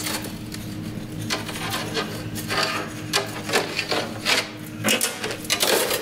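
Irregular clinks, knocks and rubbing of metal brake-line tubing and tools being handled on a workbench, over a steady low hum.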